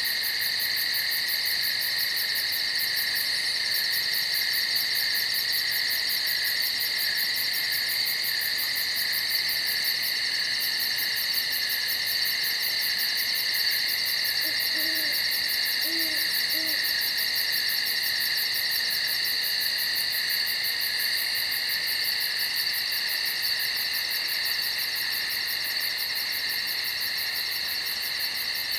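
A steady, shrill chorus of night insects, with a fast pulsing high buzz over it. Around the middle, an owl gives a few short, low hoots, quieter than the insects.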